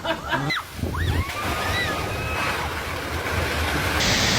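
Strong storm wind rushing through trees and buffeting the microphone. It gets louder and brighter about four seconds in. A few faint rising and falling whistles sound in the first two seconds or so.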